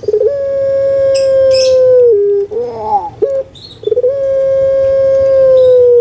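Puter pelung (Barbary dove) cooing: two long, drawn-out coos, each held on one steady pitch for about two seconds and then dropping to a lower note, with short broken wavering notes between them. A brief high rasp sounds over the first coo.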